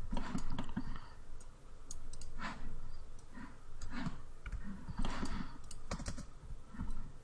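Computer keyboard keys clicking at an irregular pace, with the odd low thud.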